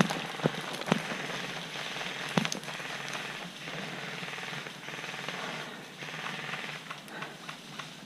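A few sharp airsoft gun cracks, the loudest near the start, about a second in and about two and a half seconds in, over continuous rustling and crackling noise.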